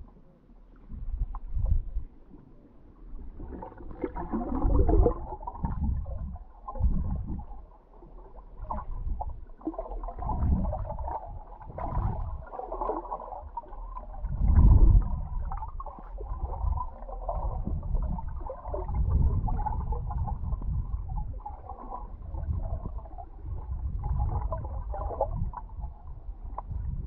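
Water rushing and gurgling around a GoPro in its sealed housing, on a submersible towed just under the sea surface. It is heard as muffled, low rumbling surges that rise and fall irregularly, the strongest about halfway through.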